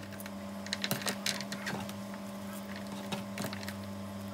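Light, scattered taps and crackles of raw onion slices being pulled apart into rings and dropped into a plastic food container, over a steady low hum.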